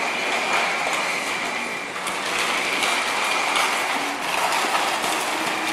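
Steady background noise of a busy shopping area: an even hiss with a constant high-pitched whine running through it, and faint scattered ticks.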